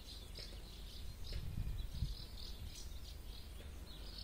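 Small birds chirping faintly, short high chirps repeating on and off, with a few soft low thumps about one and a half to two seconds in.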